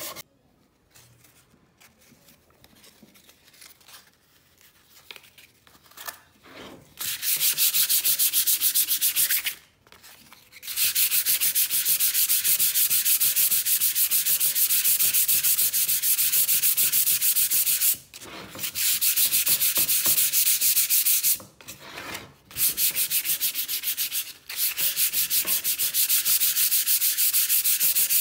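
Sandpaper rubbed by hand over a flat wooden disc in quick back-and-forth strokes. After a few quiet seconds the sanding starts about seven seconds in and runs in long spells with brief pauses.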